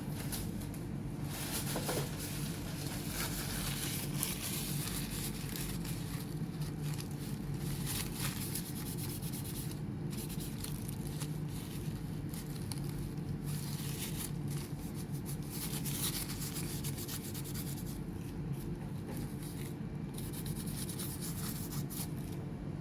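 Hand work on an opened laptop's internals: intermittent rubbing and scraping, with pauses, over a steady low hum.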